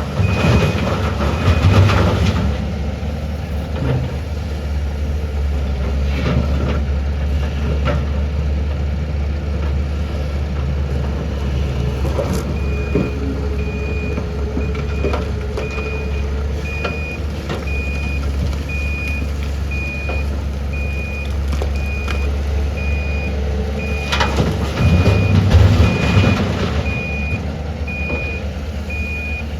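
Large diesel excavator engine running steadily, with a repeated high-pitched warning beep, typical of a travel alarm, for the second half. The engine swells louder twice under load, near the start and near the end.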